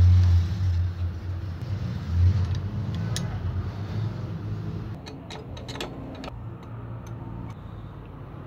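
A low background rumble that is loudest in the first few seconds and then fades, followed about five to six seconds in by a quick run of sharp metal clicks as a spanner and small fuel-pump parts are handled on a steel bench.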